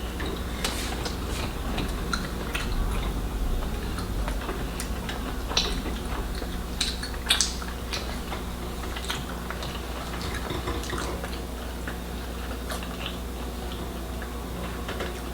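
Close-up eating sounds of fufu and soup: scattered wet chewing and lip smacks over a steady low hum.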